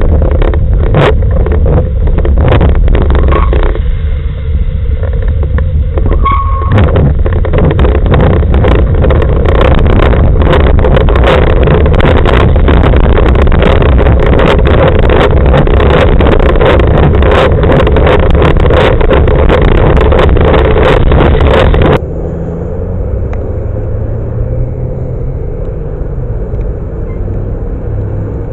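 Loud, constant wind and road rumble picked up by a bicycle-mounted camera riding on wet, cracked pavement, with many sharp rattles and clicks from the mount. About two-thirds of the way through it drops abruptly to a quieter, steadier rumble with a faint low motor-vehicle hum.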